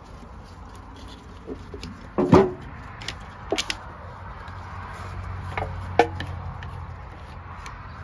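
Paint containers being handled on a workbench: a bottle of paint reducer set down with a knock about two seconds in, followed by a few lighter clicks and taps, over a low steady hum.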